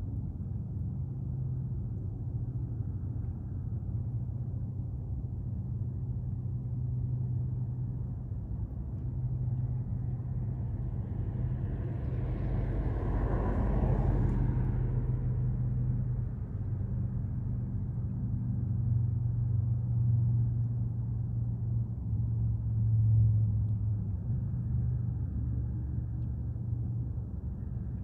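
A steady low engine hum, with a louder rushing swell that builds and fades about halfway through.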